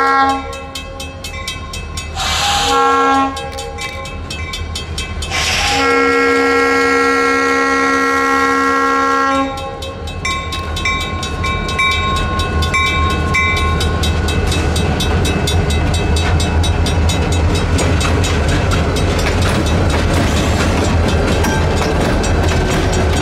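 Lead GP40's Nathan RS3L air horn, a very sick horn with dead chimes. A blast ends just after the start, a short one follows about two seconds in, then a long one from about six to nine seconds. Under it the crossing's mechanical bell rings with rapid, even strokes, and after the horn stops the EMD GP40 diesels rumble and wheels clatter over the crossing as the train crawls through.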